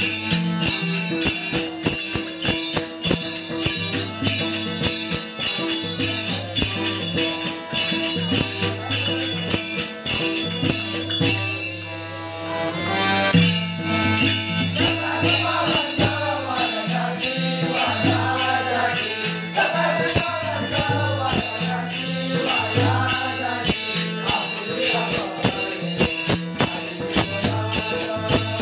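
Warkari bhajan music: hand cymbals (taal) keep a fast, even beat over a steady drone of sustained tones. A man's sung melody comes in clearly about halfway, after a brief lull.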